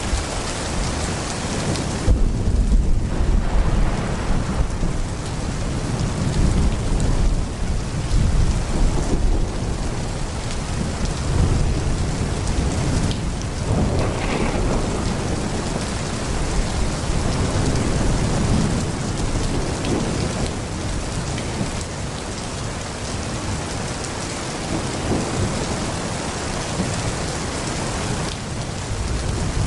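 Heavy rain pouring steadily, with thunder rumbling low, swelling and fading several times in a rolling storm.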